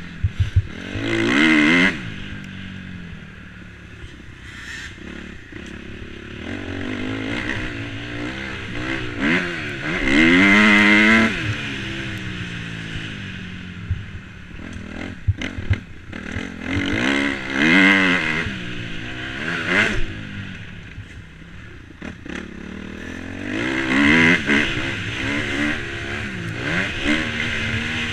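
2011 Suzuki RM-Z250 four-stroke single-cylinder motocross engine under riding load, revving hard and backing off several times as it accelerates down straights and slows for corners, with clicks and knocks from the bike over the track.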